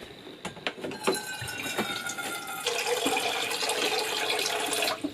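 Water pouring into a container to be boiled, a thin stream at first that becomes a louder, fuller gush about two and a half seconds in and stops just before the end.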